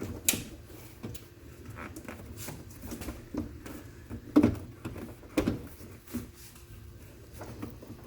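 Scattered plastic knocks and clicks of a car door trim panel and its parts being handled and fitted, the two loudest about four and a half and five and a half seconds in.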